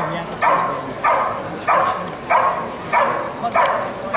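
Belgian Malinois barking steadily and rhythmically, about one and a half barks a second, at a helper standing in a hide. This is the hold-and-bark of a protection trial: the dog has cornered the helper and keeps him there by barking, without biting.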